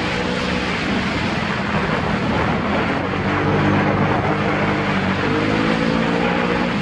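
ATV engine running under varying throttle: its pitch sags about a second in and climbs again near the end, over a steady rushing noise.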